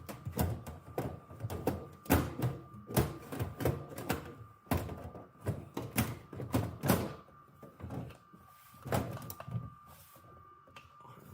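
Irregular clicks, knocks and light rattles of desktop computer parts and the case being handled and fitted during reassembly, busiest for the first eight seconds, over a faint steady high-pitched tone.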